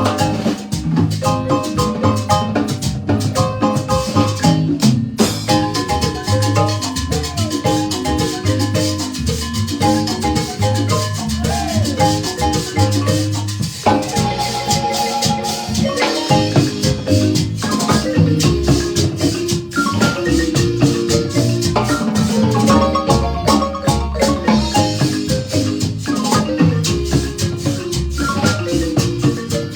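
Marimba band playing a lively piece: quick, struck wooden-bar melody notes over a steady bass line, with percussion accompaniment.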